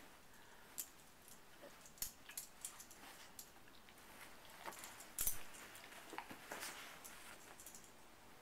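A dog digging and nosing in bedding: soft rustling of blankets and sheets with scattered light scratches, and one louder rustle about five seconds in.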